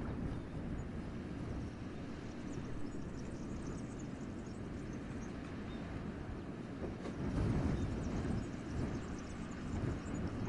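Winter wind gusting through a forest, a steady low rushing that swells into a stronger gust about seven seconds in.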